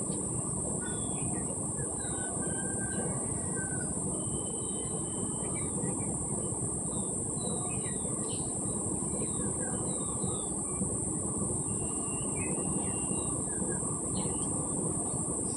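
A steady low rushing noise with a steady high hiss, and small birds chirping briefly now and then.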